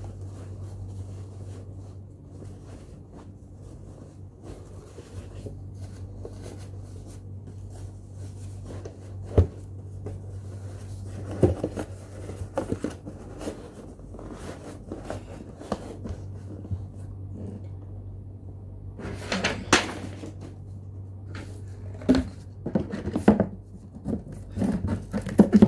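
Handling sounds: a cloth bag being rustled and folded and a cardboard box moved about, with a few soft knocks and a longer rustle about nineteen seconds in, over a steady low hum.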